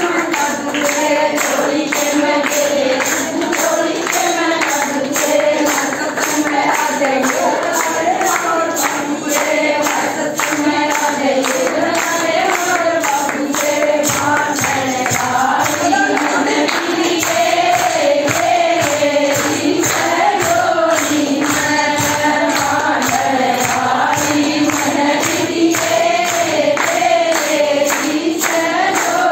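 A group of women singing a Hindu devotional bhajan together in kirtan style, with steady rhythmic hand-clapping keeping the beat throughout.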